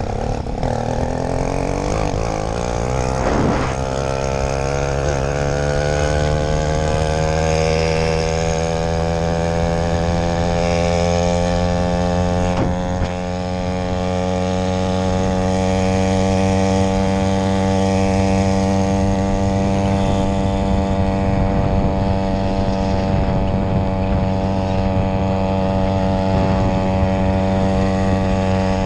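80cc two-stroke motorized-bicycle engine accelerating away, its pitch climbing over the first five or six seconds, then running steadily at cruising speed.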